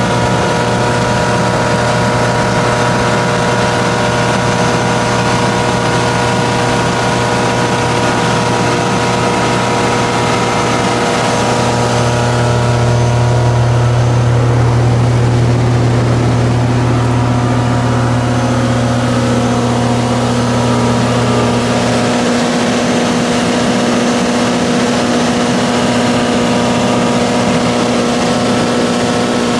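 Generac 25 kW standby generator's Fiat propane engine running steadily, a constant hum with a stack of even tones. Its low hum grows louder for about ten seconds in the middle, then settles back.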